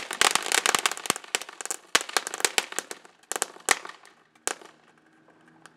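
Ground fountain firework crackling: a rapid run of sharp pops that thins out after about three seconds as it burns out, with a few last scattered pops near the end.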